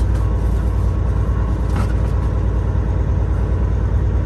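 Semi truck's diesel engine running steadily as the truck rolls slowly, heard from inside the cab, with a brief noisy sound about two seconds in.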